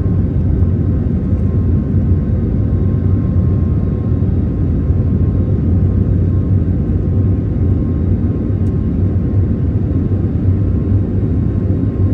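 Airbus A321neo's CFM LEAP-1A turbofan engines at climb power, heard inside the cabin: a loud, steady low rumble with a faint steady whine above it.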